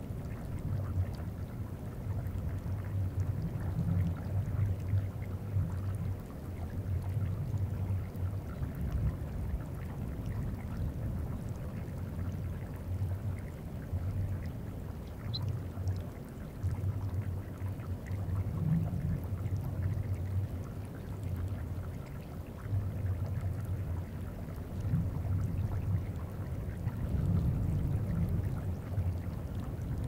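Deep, low bumping and rumbling of glacier ice moving, picked up by geophones in the ice, swelling and fading irregularly every second or two. Above it are faint ticks and trickling of the glacier surface melting.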